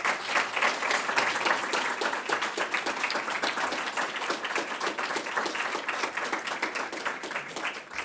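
Audience applauding, many hands clapping at once, fading toward the end.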